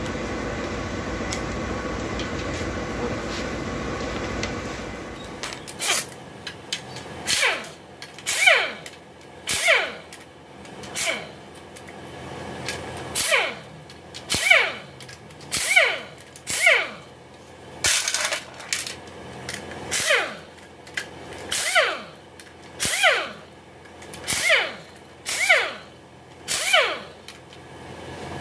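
A steady hum and hiss for about the first five seconds. Then a cordless power driver is run in short bursts, about one a second, each burst winding down in pitch as the motor coasts to a stop. It is spinning out the 10 mm bolts on an automatic transmission's valve body.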